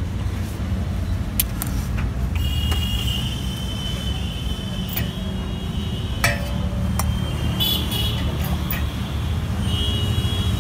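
Steady rumble of road traffic, with vehicle horns tooting now and then, and a few sharp clinks.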